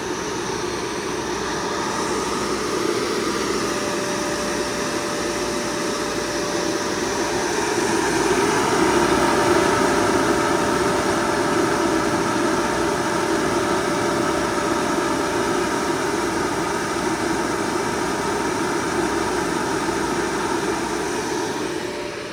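FMC M10000 aircraft ground air-conditioning unit running steadily, a constant mechanical noise with a thin steady whine that comes in about four seconds in; the sound grows a little fuller and louder around the middle and holds there.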